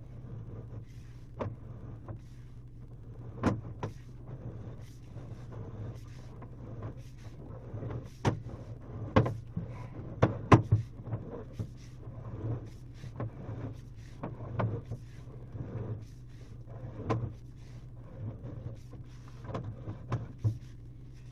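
Sewer inspection camera being pushed through old cast iron drain pipe: a steady low hum with irregular knocks and clicks, the loudest ones bunched around the middle.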